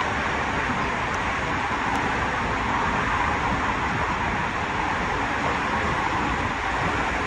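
Water rushing and a rider sliding feet-first down an enclosed tube waterslide, heard from inside the tube: a steady, dense rushing noise.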